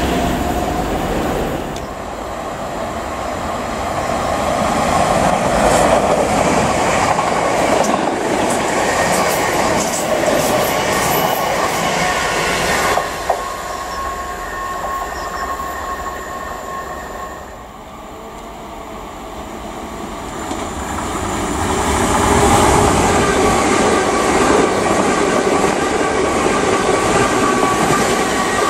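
Greater Anglia Class 379 and Class 317 electric multiple-unit trains running through a station: a steady rumble of wheels on the track with a faint whine. The loudness swells and fades as each train approaches and passes close by.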